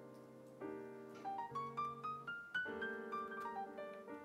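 Background piano music: a run of single notes climbs upward about halfway through, followed by held chords.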